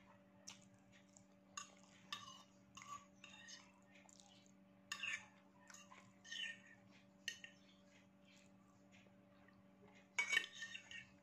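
Metal fork clinking and scraping on a ceramic plate as the last noodles are picked up: scattered short strokes, the loudest cluster near the end. A faint steady hum underneath.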